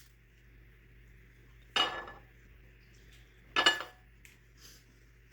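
Two sharp clinks of dishes or cutlery, each ringing briefly, the first about two seconds in and the second about a second and a half later.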